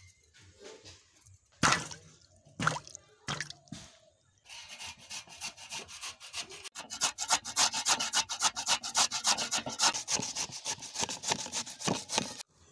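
Radish being grated on a metal hand grater over a steel bowl: steady, rhythmic scraping strokes, several a second, starting about four seconds in. Before that come a few sharp knocks and scrapes.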